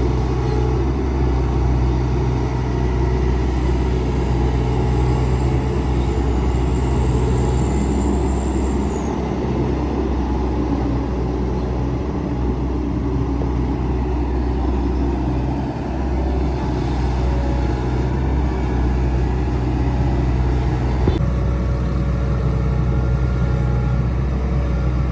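Hitachi Zaxis hydraulic excavator's diesel engine running steadily under working load, a loud continuous drone that dips slightly now and then.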